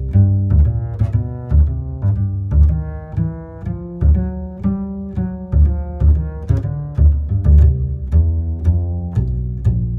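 Background music: a deep bass line and pitched melody notes over a steady beat.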